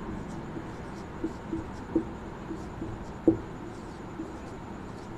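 Marker pen scratching and tapping on a whiteboard as a word is written, in short strokes, with two sharper taps about two seconds and just over three seconds in.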